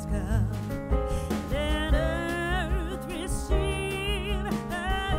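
Background music: a song with a sung melody over steady bass and a beat.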